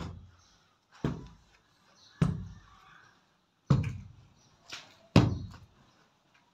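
Six heavy blows at a steady pace, one weaker than the rest: a hand tool pounding the brick wall.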